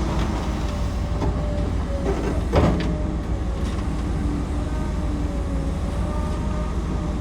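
Excavator's diesel engine running steadily under load, with a wavering hydraulic whine over it. A single sharp metallic clank comes about two and a half seconds in.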